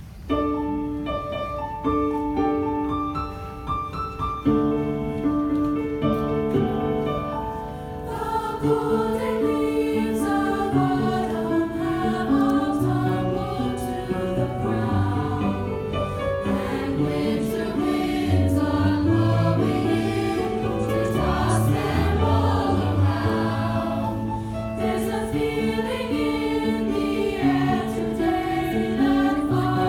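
High school choir singing in parts, starting on held chords, with a lower part coming in about eight seconds in and the voices moving more busily from there.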